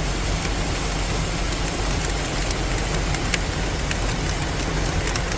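Heavy rain falling, a steady rush with scattered sharp ticks of drops, over a constant low rumble.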